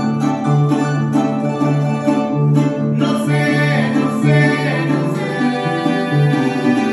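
Mexican vihuela strummed rhythmically over a wooden harp plucking a repeating bass line and melody: a vihuela-and-harp duet playing a folk son.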